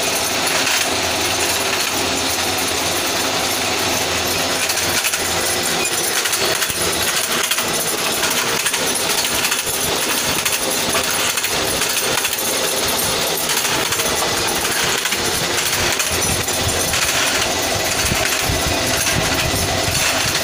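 Bamboo strip slicer machine running as bamboo strips are fed through and cut, a steady dense clatter and rattle throughout.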